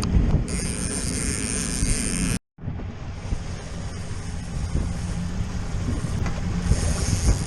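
Wind buffeting the microphone over a running boat motor, with a steady high-pitched whine that comes in about half a second in and returns near the end. The sound drops out completely for an instant about two and a half seconds in.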